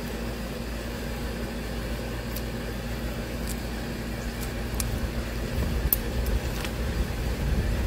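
Scissors snipping stems of leafy greens: a few faint, sharp clicks over a steady low hum. Wind rumbles on the microphone in the last couple of seconds.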